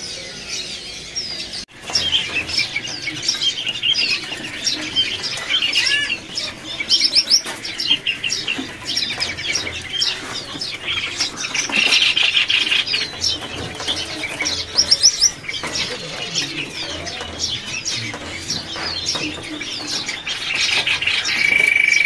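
Many caged songbirds chirping and whistling at once, a dense chorus of overlapping short calls. About halfway a quick run of repeated notes stands out, and near the end one bird starts a steady trill.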